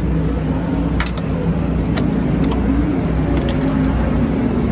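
Racing engine running steadily as a low, wavering drone, with a single sharp click about a second in.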